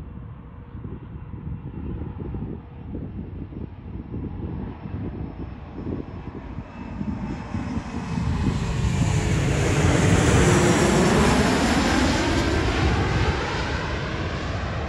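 Airliner's engines building steadily as the plane approaches and passes close by, with a sweeping hiss at its loudest about ten seconds in, then easing slightly.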